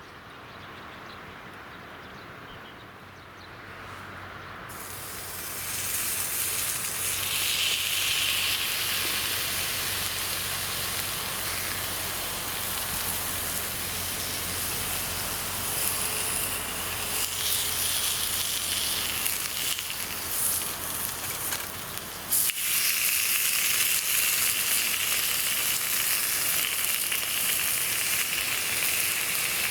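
Zabuton beef sizzling steadily as it cooks over a campfire. The sizzle starts suddenly about five seconds in after a quieter stretch, and breaks off briefly about 22 seconds in before carrying on.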